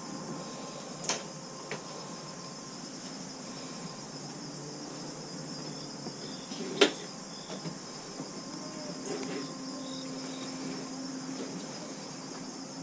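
Steady high insect chirring, with a few sharp clicks or knocks; the loudest is a single knock about seven seconds in.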